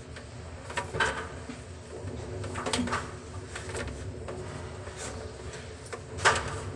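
Rigid plastic PP-R water pipes and fittings knocking and clicking as they are handled and pushed into place: about six short, sharp taps spread out, the loudest near the end, over a low steady hum.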